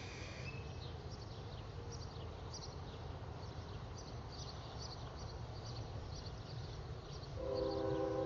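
Small birds chirping, short high notes again and again, over a low steady background rumble. Near the end a loud steady horn of several notes at once starts and becomes the loudest sound.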